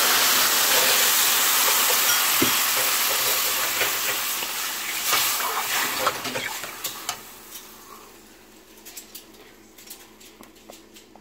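Warm water poured into a hot pan of semolina browned in ghee and oil, hissing and sizzling loudly, then dying away over several seconds. Clicks and scrapes of stirring come through as the sizzle fades.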